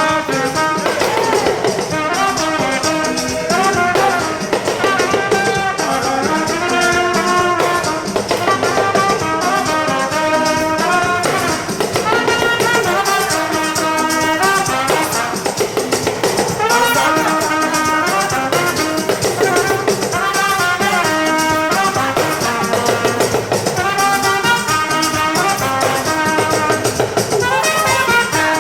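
Music: a melody moving note to note over a steady, busy beat, playing without a break.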